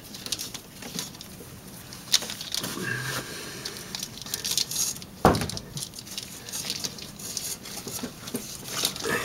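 Handling noise from spark plug wires and their rubber boots being worked by hand under a plastic wiring loom in an engine bay: light rustling and small clicks, with one sharper knock about five seconds in.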